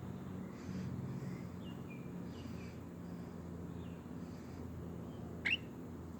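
A few faint, short bird chirps, with a clearer one about five and a half seconds in, over a steady low hum.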